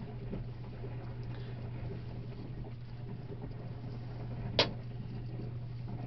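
Hands fitting a coaxial cable connector onto a TV antenna booster: faint handling noise and one sharp click about four and a half seconds in, over a steady low hum.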